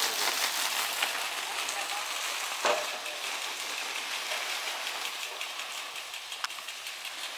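Tripod-mounted irrigation sprinkler spraying water under pump pressure: a steady hiss of spray and falling water, broken by a few sharp knocks, the loudest about two and a half seconds in.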